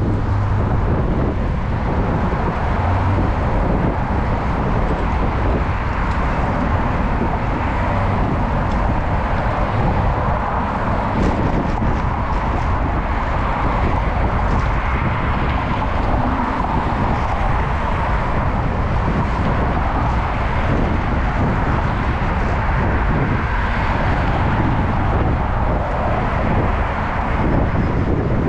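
Steady rushing wind on a bike-mounted action camera's microphone while riding, mixed with road traffic noise.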